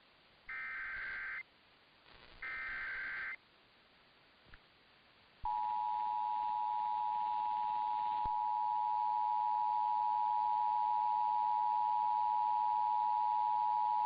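Two bursts of the Emergency Alert System's SAME digital header, each a harsh data screech about a second long, about a second apart. About five seconds in, the EAS two-tone attention signal starts and holds steady: the alarm that opens a broadcast emergency alert, here a severe thunderstorm warning.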